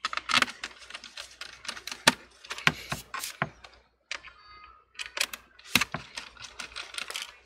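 Small screws being driven into a laptop's bottom cover with a precision screwdriver: irregular sharp clicks and taps of the bit, the driver and the hands on the case.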